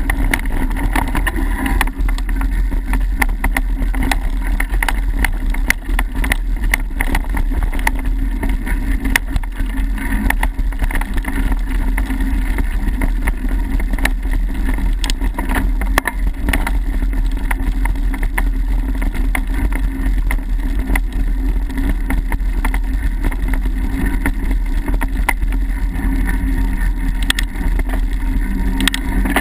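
Mountain bike ridden fast down a dirt singletrack: a steady low rumble of tyres and wind buffeting on the microphone, with frequent sharp clicks and rattles as the bike jolts over bumps.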